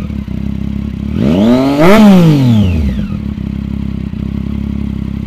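Sport motorcycle engine breathing through a short aftermarket slip-on exhaust, revved once about a second in: it climbs in pitch and falls back within two seconds, then settles to a steady idle.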